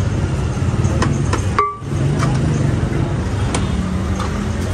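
Busy street ambience: a steady low rumble of road traffic with scattered clatter and clicks, briefly dipping a little under two seconds in.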